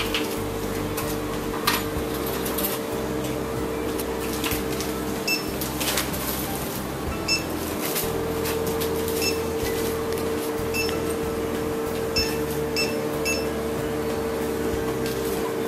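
Checkout barcode scanner giving short high beeps as items are scanned, about seven or eight beeps a second or two apart from about five seconds in. Under them runs a steady electrical hum, with a few knocks of goods handled on the counter.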